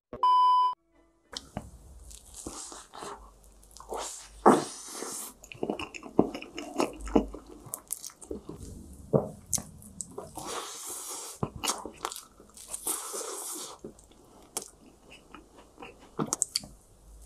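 A short steady beep opens, then close-miked biting and chewing of an Oreo ice cream cake, with irregular crunches of the chocolate cookie layers.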